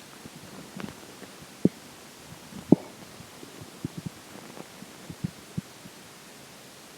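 Human stomach and gut gurgling as water and air move through during digestion: a string of short, irregular gurgles and pops, the loudest about three seconds in, over a steady hiss.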